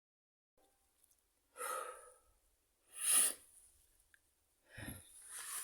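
A person breathing heavily, out of breath: three loud, noisy breaths about a second and a half apart, the middle one the loudest and sharpest.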